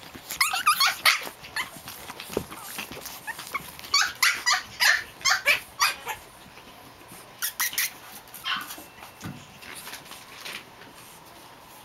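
Japanese Chin puppies yapping in play: quick runs of short, high-pitched yips and barks that die away near the end.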